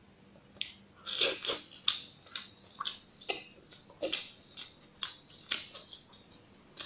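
Close-up eating of a cooked crab and its roe: wet chewing and lip smacks mixed with small crackles of shell being picked apart, in a string of short sharp clicks about two a second.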